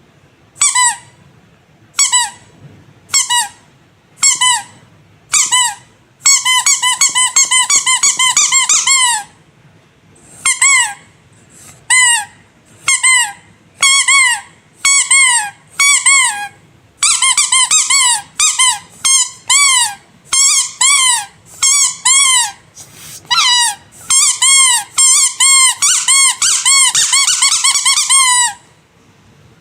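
Squeaky rubber animal toys being squeezed. Single short high squeaks come about once a second, broken by runs of rapid squeaks, and each squeak bends up and back down in pitch.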